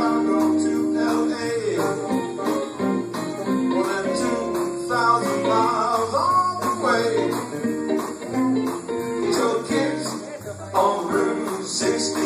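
Live worship music in a church: guitar-led band with voices singing over a steady beat.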